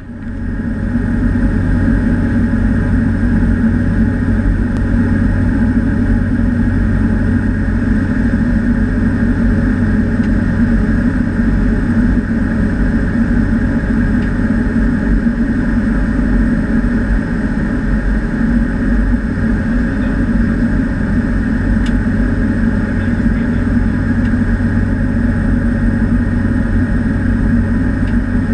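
Cessna 208B Grand Caravan's Pratt & Whitney PT6A turboprop engine and propeller running steadily in flight, heard inside the cockpit as a constant loud drone.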